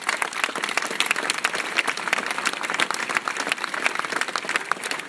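Crowd applauding, many hands clapping together in a dense, even patter.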